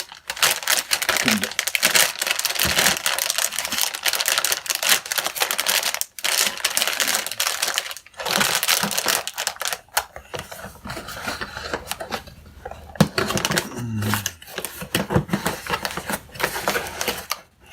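Packaging of computer parts being handled: continuous crinkling and rustling with many small clicks and taps, pausing briefly about six and eight seconds in.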